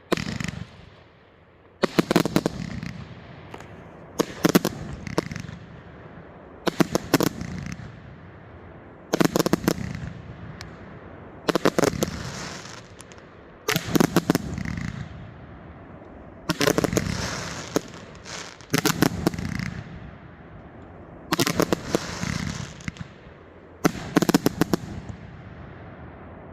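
180-shot consumer firework cake firing in volleys: each volley is a quick cluster of several sharp bangs trailing off in a low rumble, with a new volley about every two and a half seconds.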